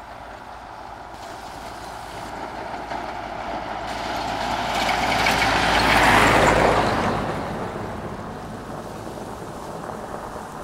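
A pickup truck on a dirt road approaching fast and passing close by, its engine and tyre noise on the loose dirt building to a peak about six seconds in, then fading as it drives away.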